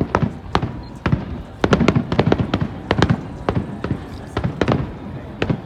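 Aerial fireworks bursting in a rapid, irregular series of sharp bangs, about a dozen, with several close together about two seconds in, over a low rumble.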